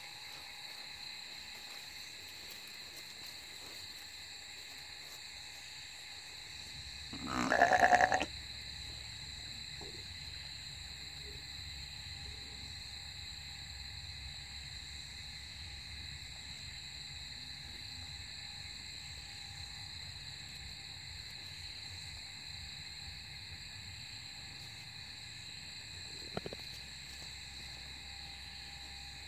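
A Dorper sheep bleats once, loudly, for about a second, some seven seconds in. Under it runs the steady high chirring of night insects.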